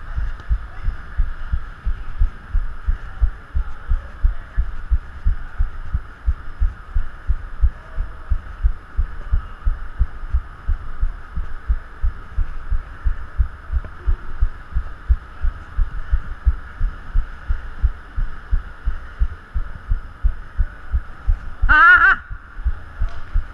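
Dull low thuds at an uneven rhythm of a few per second: footsteps and body movement jolting a body-worn action camera while running on artificial turf, over a faint steady hum. A short shout from a player near the end.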